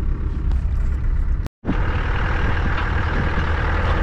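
Land Rover driving on a bush track, a steady engine and road rumble heard from inside the cabin. It cuts out abruptly for a moment about a second and a half in, then resumes with more hiss.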